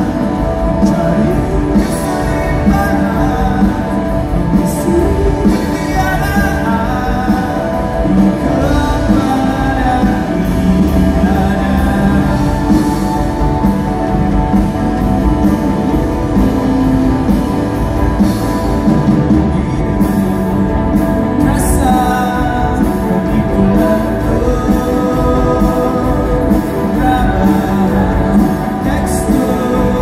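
Rock band playing live with a singer over guitars, keyboard and drums, steady and loud, as picked up by a phone's microphone in the crowd.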